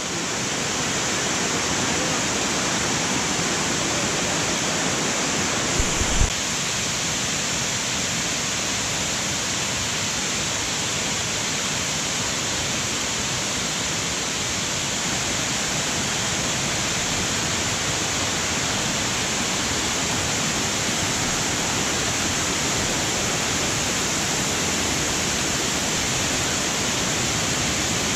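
Water rushing steadily over terraced limestone cascades of a waterfall, a constant even roar of falling water. There is a brief low thump about six seconds in.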